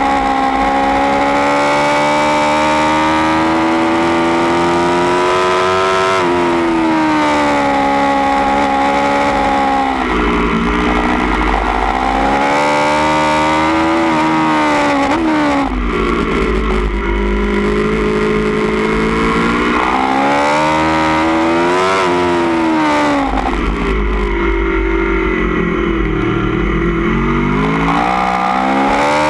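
2016 Aprilia Tuono V4 1100 Factory's V4 engine, through a baffled Austin Racing GP1R end can, heard onboard at track speed. It pulls through the gears with the pitch climbing and dropping sharply at each change. Three times, about ten, sixteen and twenty-four seconds in, the engine note thins off the throttle under a low rumble.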